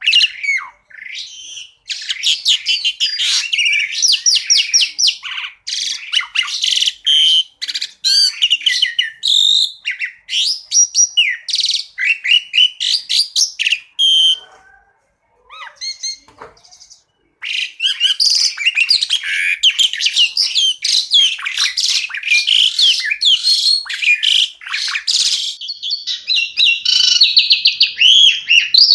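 Asian pied starling (jalak suren) singing a fast, varied stream of sharp chirps, whistles and rapid trills. The song breaks off for about three seconds midway.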